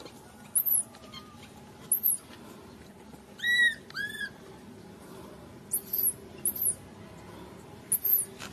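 Infant macaque giving two short, arched squealing calls about three and a half seconds in, among repeated very high, short chirps.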